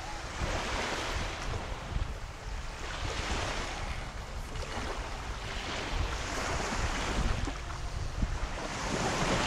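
Small waves washing onto a sandy beach, a hiss that swells and fades every few seconds, over a steady rumble of wind on the microphone.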